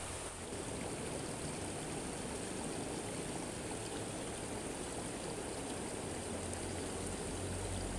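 Steady rush of a muddy river's current flowing past the bank.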